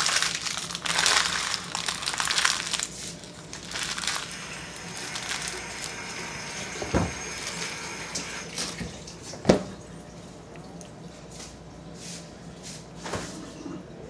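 Water running from a tap or toilet, strongest and most uneven in the first few seconds, then settling into a steadier, quieter hiss that stops about eight and a half seconds in. Two sharp knocks, about seven and nine and a half seconds in, the second the loudest sound.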